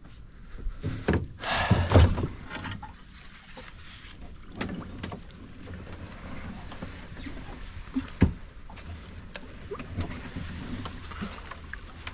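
Kayak paddling: irregular paddle strokes swishing and splashing in the water, loudest about two seconds in, with a few sharp knocks, one near the end.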